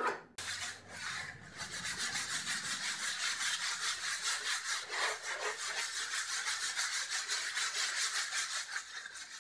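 Sanding block rubbed by hand over a painted faux-granite countertop in quick, even back-and-forth strokes, a rhythmic scratchy hiss that starts about half a second in. The dried paint is being lightly sanded smooth before the sealer goes on.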